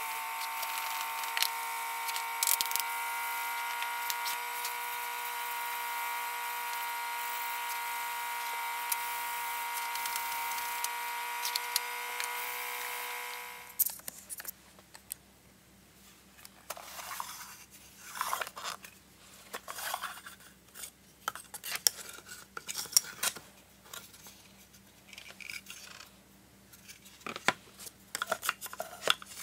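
A steady sound of several held tones fades out about thirteen seconds in. After it come scattered light knocks and scrapes of wood as finger-jointed cedar boxes are handled and a sliding lid is slid out, busiest near the end.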